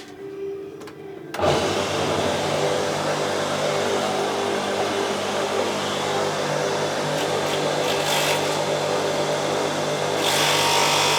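Portable electric pressure washer switched on: its motor and pump start suddenly about a second and a half in and run steadily with a hum. Near the end a louder hiss joins as the water jet sprays.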